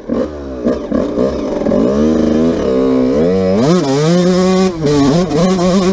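A 1991 Honda CR125's single-cylinder two-stroke engine revving up and down under throttle while being ridden. The revs drop right at the start, climb, dip briefly past the middle, then rise and hold high.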